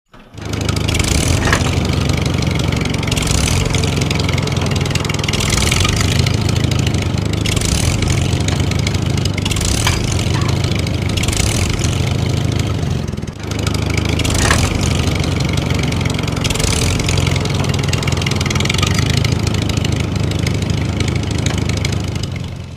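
Tractor engine running steadily under load, a hissing surge about every two seconds, with a brief dip about halfway through; an engine sound effect laid over the plastic toy tractors, which make no engine sound of their own.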